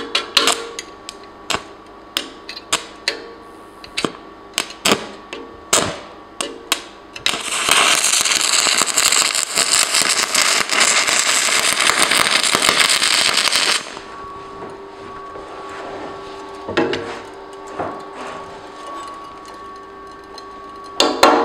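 Manual arc welding with a Zeller 480 aluminium-silicon stick electrode on thin aluminium over steel. First comes a run of short, sharp, irregular cracks as the arc catches and breaks. About seven seconds in, the arc burns steadily for some six seconds with a loud, dense crackle and hiss, then cuts off suddenly. A faint steady hum follows, and a loud burst of noise comes right at the end.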